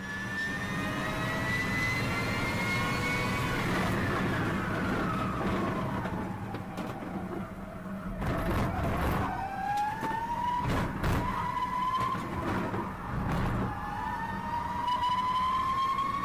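A car's drive sound: a high whining note with several overtones that slides slightly up, falls away over a few seconds, then climbs steadily again, like a motor note following the car's speed. A few sharp knocks come midway.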